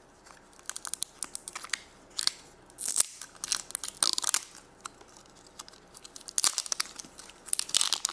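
Plastic candy packaging crinkling and crackling in the hands as it is unwrapped and torn open, in irregular bursts of short crackles.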